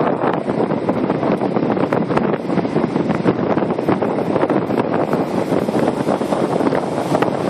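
Wind buffeting the microphone over the running noise of an electric commuter train on the rails, with frequent short clicks and rattles.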